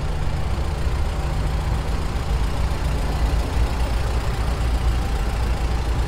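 Engine of a 1922 International truck running steadily at low speed as it drives past, a low, even sound with no sharp knocks.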